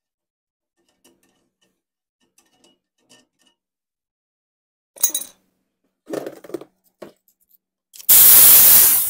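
A loud one-second blast of compressed air from a blow gun near the end. The air is being blown through the hit-and-miss engine's fuel check valve to free a stuck check ball. Before it come faint clicks and a few short knocks and handling sounds.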